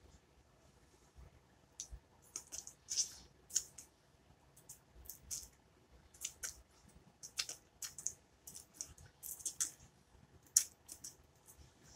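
Wet mouth smacks and sucking clicks of a man licking his fingers clean after eating a snack cake: many short, irregular smacks, starting about two seconds in.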